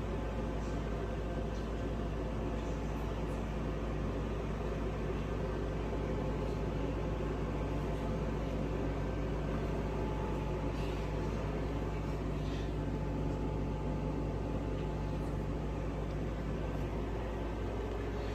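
Steady hum of a running machine, with several constant tones over a low drone and a few faint ticks; one of the low tones stops near the end.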